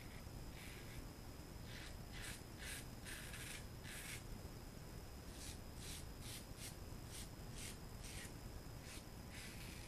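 RazoRock German 37 slant safety razor scraping through lather and stubble on the neck: a quick run of short, faint strokes, a dozen or more, with brief pauses between them.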